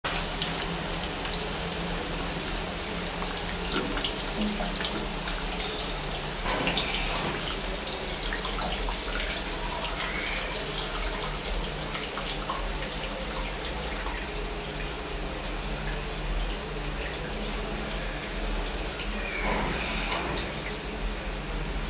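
Liquid gushing out of a 3-inch overfill prevention valve's drop tube into a tank under gravity filling: a steady rush and splash of the tank filling toward the valve's float shut-off level.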